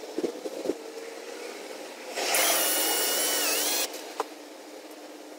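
Cordless drill with a step bit running in one short burst about two seconds in, its high whine dipping in pitch as it drills a hole in a PVC pipe. A few light clicks come before it and one after.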